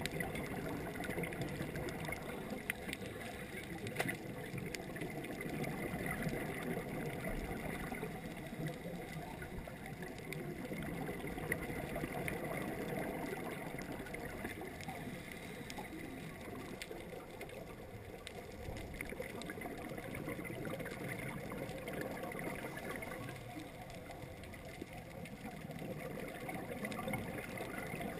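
Underwater ambience picked up by a GoPro in its waterproof housing: a steady, muffled low rushing that swells and eases slowly, with a few faint clicks.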